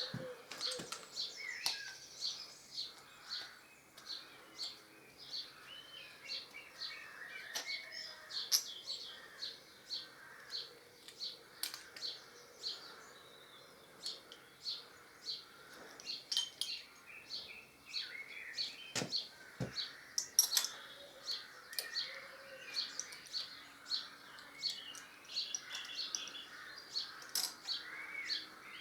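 A bird chirping over and over, about two short high chirps a second, with other birdsong faint behind it. Two sharp clicks come about two-thirds of the way through.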